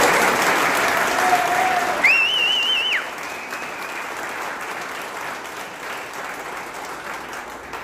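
A small group of people applauding, loudest at first and thinning out. About two seconds in, a high whistle with a wavering pitch cuts through for about a second.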